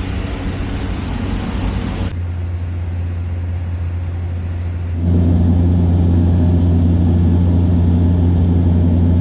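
Cessna Grand Caravan's Pratt & Whitney PT6A turboprop engine and propeller running in flight, heard from inside the cabin: a loud, steady low hum. Its level jumps abruptly twice, about two and five seconds in, and is louder after the second jump.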